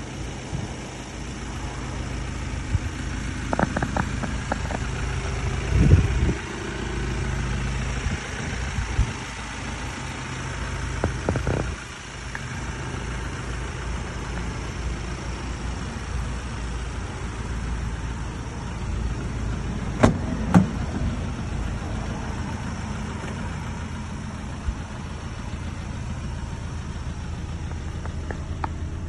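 Ford Transit 2.0-litre four-cylinder diesel idling steadily, with a few handling knocks and two sharp clicks about two-thirds of the way through.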